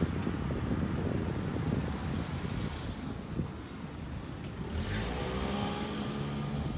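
A road vehicle running past on the street beside the path, its engine note rising about five seconds in, over a steady low rumble.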